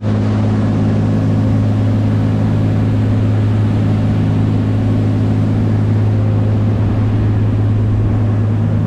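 Boat engine running at a steady speed: a loud, even low drone.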